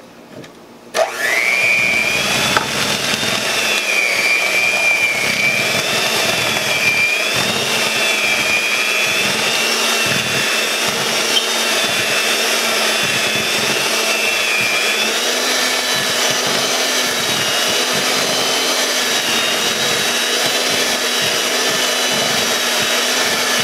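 Electric hand mixer switched on about a second in and running steadily, its beaters churning thick cookie dough. The motor's whine steps up a little in pitch past the middle.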